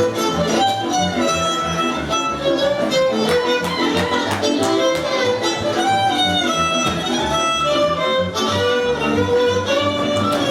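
Music: a violin playing a melody with pitch slides, over a rhythmic string accompaniment with a bass line.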